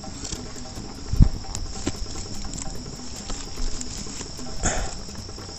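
Insects chirring steadily in a high, even drone, with a single low thump about a second in and a short rustle near the end.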